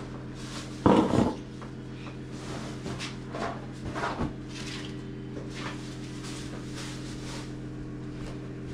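A large metal basin of flour is set down on a concrete floor with a loud clunk about a second in, followed by rustling and scraping as a flour sack is pulled across the floor. A steady low hum runs underneath.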